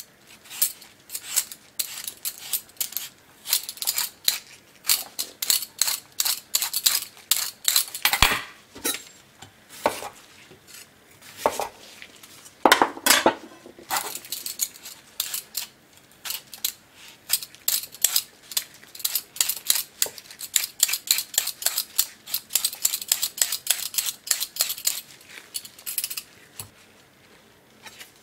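Stainless steel Y-peeler scraping the skin off a knob of fresh ginger in quick repeated strokes, several a second, with a few louder, longer strokes near the middle. The strokes stop shortly before the end.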